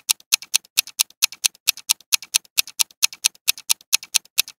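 Fast clock-ticking countdown sound effect, about five crisp ticks a second with louder and softer ticks alternating, timing the answer period of a quiz question.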